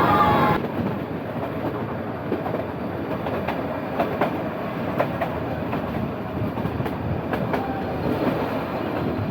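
Nilgiri Mountain Railway train coach running downhill behind a diesel engine: a steady rumble of the wheels, with irregular clicks as they cross rail joints. A brief wavering squeal at the very start cuts off.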